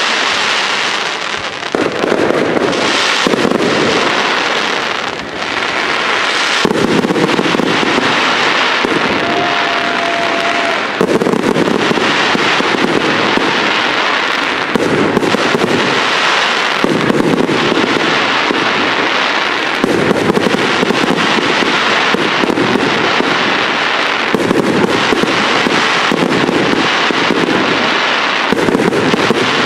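Large fireworks display: a continuous barrage of crackling and popping shell bursts, with louder stretches starting abruptly every few seconds.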